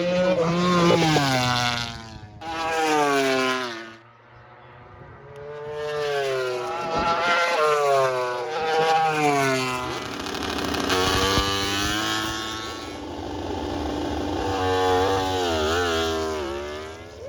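Racing motorcycles passing at speed, several in succession, their engines revving up and down in pitch through gear changes. There is a short lull about four seconds in.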